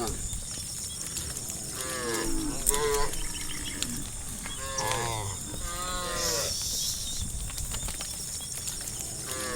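Cattle mooing: about four short calls that rise and fall in pitch, spaced over several seconds, with a steady high hiss underneath.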